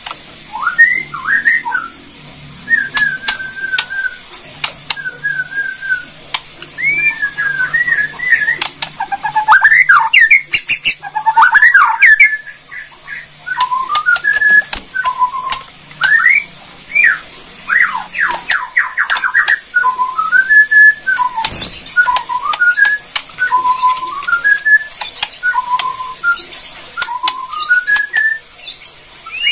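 White-rumped shama (Borneo murai batu) singing a continuous stream of short whistled notes that glide up and down in pitch. Sharp clicks come in among the notes, loudest about ten to twelve seconds in.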